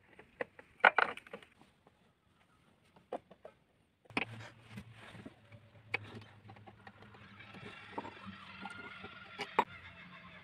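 Clicks and knocks from the plastic and metal chain-brake parts and clutch cover of a Husqvarna 445 chainsaw being handled, loudest about a second in. After a short lull, a steady low hum with scattered light taps.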